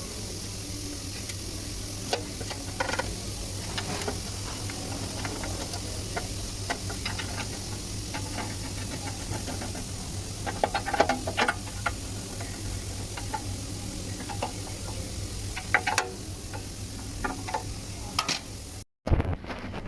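Scattered clicks and knocks over a steady low hum, busiest about halfway through, with a brief cut-out near the end.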